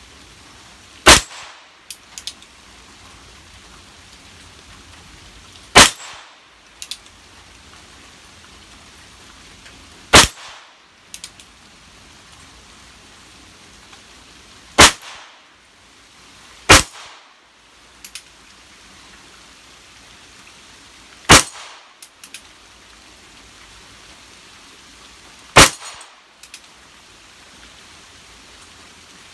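Seven single shots from a Ruger Wrangler .22 LR single-action revolver, a few seconds apart, with two shots close together in the middle. Each is a sharp crack followed about a second later by a fainter double clink.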